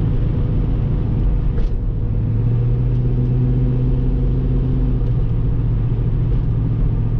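Inside a 1971 Pontiac Ventura on the move: a steady low engine and road drone with a hiss of wind noise, which the owner puts down to bad door seals. There is one light knock about a second and a half in, and the engine hum grows stronger for a few seconds in the middle.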